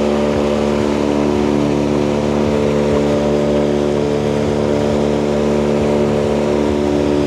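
A small river motorboat's engine running steadily at speed: a constant, even drone over a steady hiss, heard from on board.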